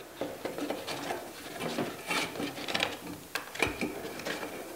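Hand-handling of a Makita MAC5200 air compressor's air filter: the plastic filter housing and pleated paper filter element scraping and clicking irregularly as they are worked by hand. A dull knock comes about three and a half seconds in.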